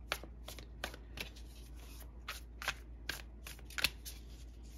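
A deck of tarot cards shuffled by hand, hand to hand: a run of short, crisp card snaps, about two or three a second at uneven spacing, the loudest a little before the end.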